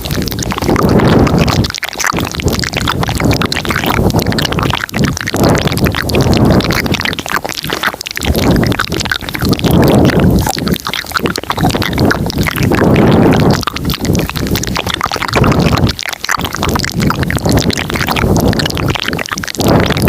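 Layered ASMR mouth sounds, several tracks overlapping into a dense, steady stream of clicks and smacks that swells every second or two.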